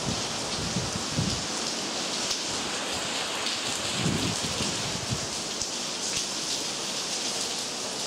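Steady rain falling on hard surfaces, an even hiss, with a few low thumps about a second in and around four seconds in.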